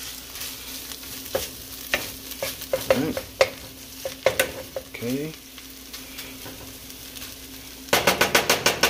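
Rice and beans sizzling in a frying pan as a utensil stirs them, scraping and clicking against the pan. Near the end comes a quick run of loud, rapid scrapes.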